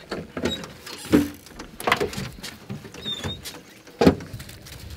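Hounds being let out of a pickup truck's bed: a handful of sharp knocks and clanks from the truck and its dog box, with a brief high chirp about three seconds in.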